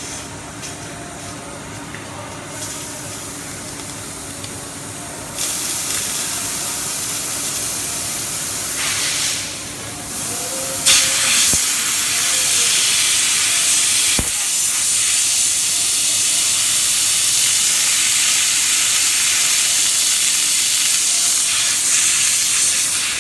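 Hissing spray from a home-made milling coolant system, growing louder in two steps, about 5 s and 11 s in, then holding steady before stopping.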